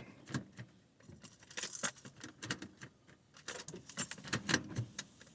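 Small loose metal pieces jingling and clinking as they are handled, in several short runs of light irregular clicks and rattles.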